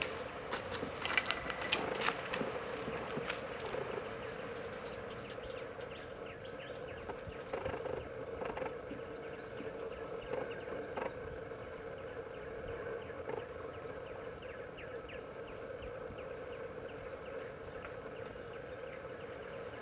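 Spot-billed pelicans taking off from water: a flurry of wing flaps and feet splashing in the first few seconds, the loudest part. Behind it, insects buzz and chirp steadily.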